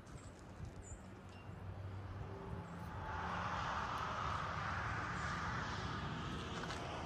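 Outdoor ambience: a steady low rumble, with a hiss that swells about three seconds in and then slowly eases.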